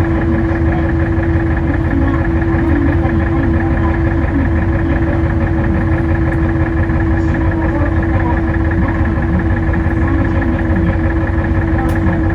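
Glass-bottom sightseeing boat's engine running steadily, a constant hum with one strong steady tone over a low rumble.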